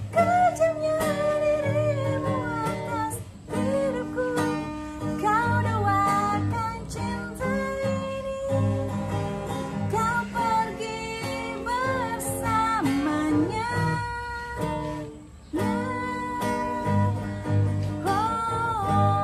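Acoustic guitar strummed and picked under a voice singing a slow, wavering melody, with two brief pauses.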